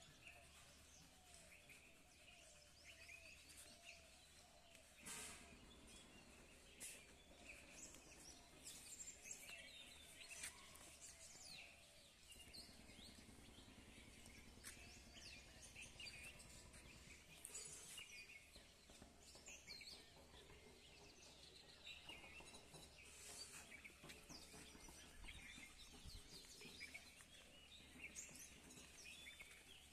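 Faint outdoor ambience of scattered bird chirps over a low steady rumble.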